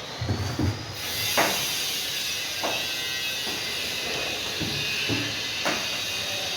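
Steady hissing mechanical noise that comes in suddenly about a second in, with a few sharp clicks over it.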